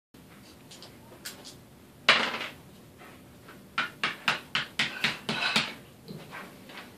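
Monopoly pieces clicking and tapping on the game board and tabletop: one louder clack about two seconds in, then a quick run of about eight taps.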